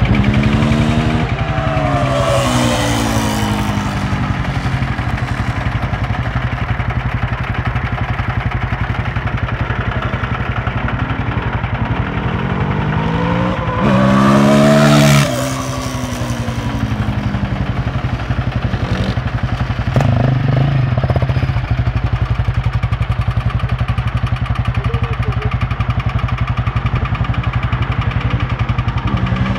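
Sport quad engines running on a road, with a steady low engine drone underneath. A quad passes close about 14 seconds in, the loudest moment, its engine note sweeping up and then down as it goes by; another engine note rises and falls near the start.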